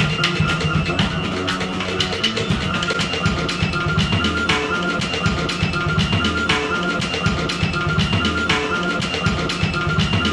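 Live noise-rock duo playing a Casio keyboard and a drum kit: a repeating pattern of steady electronic keyboard notes over a busy, pounding drum beat.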